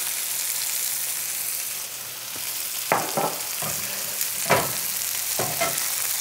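Oyster mushroom steaks sizzling in freshly drizzled oil in a cast iron skillet, a steady hiss. There are a few sharp clicks and pops in the second half.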